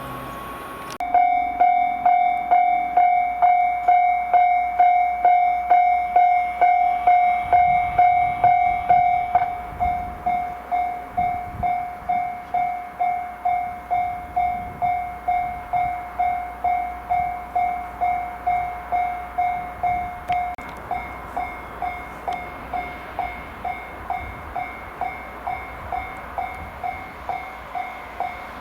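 Japanese level-crossing electronic warning bell ringing its steady 'kan-kan' at about two strokes a second. It starts about a second in and rings loudly, then goes on at a lower volume from about nine seconds in.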